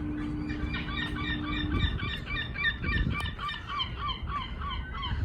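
A flock of birds calling, many short falling calls overlapping one another without a break. A low steady hum runs under them for the first couple of seconds, then stops.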